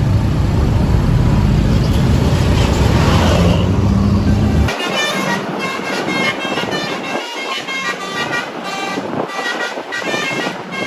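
A loud low rumble that cuts off abruptly about halfway through, then a tour bus's telolet multi-tone horn playing a quick tune of short, stepping notes.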